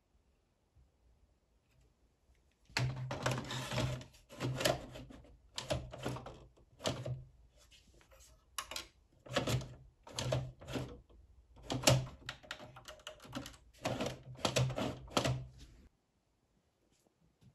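Sony SLV-X312 VHS recorder's cassette-loading mechanism clicking and clattering in repeated short bursts, with a low motor hum under each burst, as a cassette is pushed into the slot: the machine fails to take the tape in. It starts about three seconds in and stops shortly before the end.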